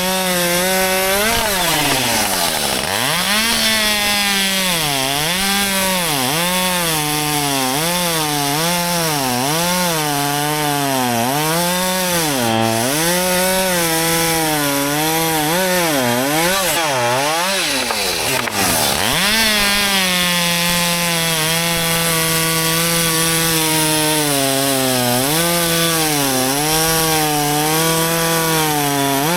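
Husqvarna 564 XP two-stroke chainsaw cutting under load. The engine's pitch sags and recovers about once a second as the chain bites, drops deeply twice, around 3 s and 18 s, and holds steadier at high speed for a few seconds after the second drop.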